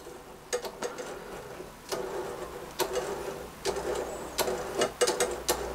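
Small scale-model steering rack and linkage being turned by hand, with scattered light clicks and knocks from the metal parts.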